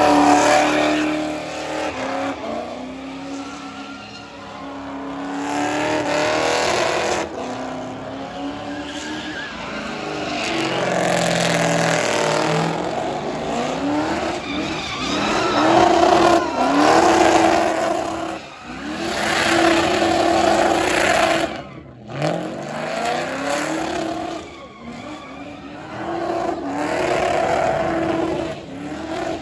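A car doing donuts: the engine revs hard in repeated rising and falling surges while the rear tyres spin and squeal on the pavement.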